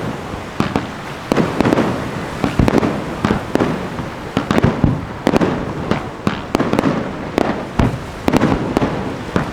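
Aerial firework shells (ball shells) launching and bursting in rapid succession, a sharp bang every half second or so, each with a short rumbling tail.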